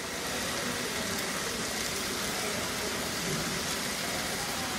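Two eggs frying in hot oil in a pan over high heat, a steady sizzle.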